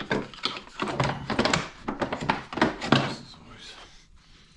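Snowmobile belt cover and its retaining pin being worked off by hand: a string of irregular knocks and clatters, dying down after about three seconds.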